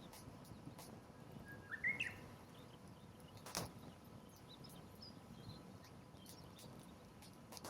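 Wood fire crackling with scattered small clicks and one sharp pop about three and a half seconds in. A bird gives a short rising chirp about two seconds in.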